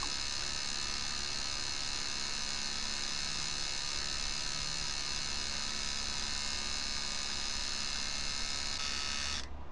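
Steady electrical buzz, rich in overtones, that cuts off suddenly about nine and a half seconds in.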